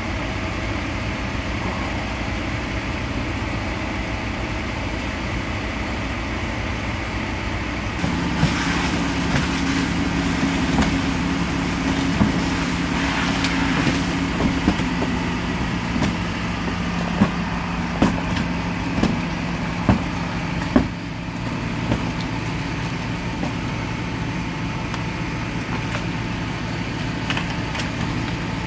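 Fire engine's motor running steadily. About eight seconds in, a second, steady engine note joins and holds for some thirteen seconds, with scattered sharp knocks over it.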